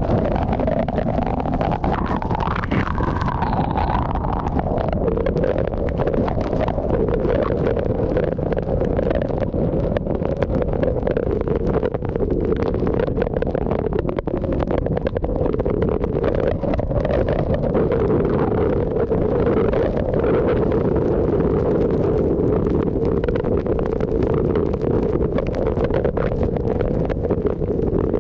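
Hurricane-force wind and driving rain buffeting a moving car, heard from inside the cabin: a loud, steady rush with many small crackles of rain and a wavering howl that rises and falls in the first few seconds.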